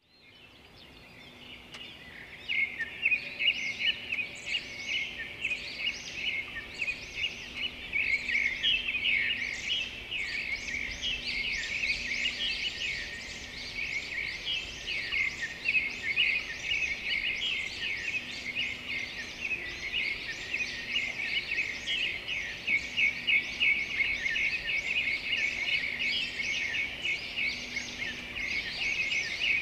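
Many small birds chirping densely and without a break, fading in over the first couple of seconds.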